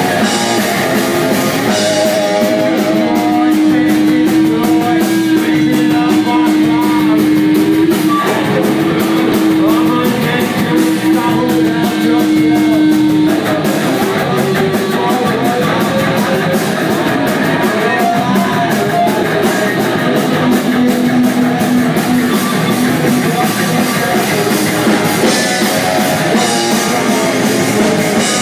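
Live rock band playing loud: electric guitars over a drum kit with busy cymbals, with long held notes through roughly the first half.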